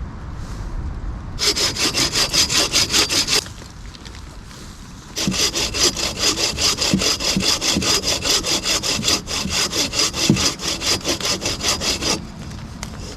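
Hand saw cutting through wood in quick, even back-and-forth strokes: a short bout of about two seconds, a pause, then a longer steady bout of about seven seconds that stops near the end.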